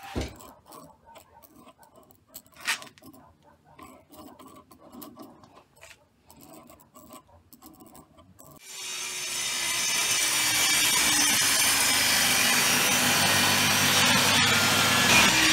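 Faint taps and scratches of a pine block being handled and marked, then about nine seconds in a table saw is switched on, spins up over about a second and runs steadily without cutting.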